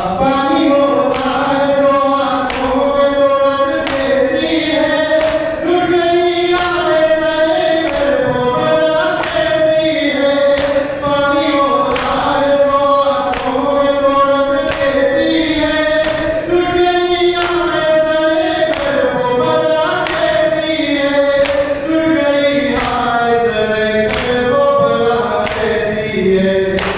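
Noha, an Urdu mourning lament, sung by a group of voices in long held, wavering melodic lines. Under the singing runs a steady rhythm of sharp beats.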